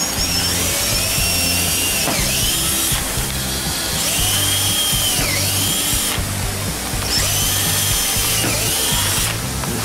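Cordless drill drilling bolt holes through a sump flange into a plastic fuel tank. It runs in several bursts, each whine rising, holding and falling in pitch as the trigger is squeezed and released.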